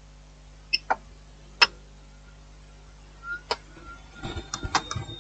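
Sparse light clicks and taps of small tools handling a phone motherboard and its metal shield, a few single clicks and then a quicker cluster near the end, over a faint steady hum.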